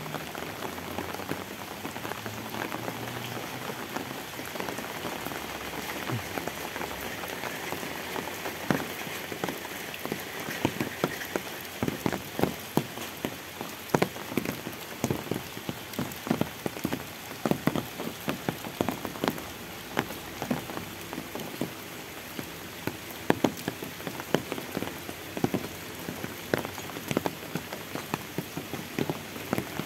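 Steady rain falling on a wet paved road and roadside plants. Many sharp drop taps stand out over it, growing more frequent about a third of the way in.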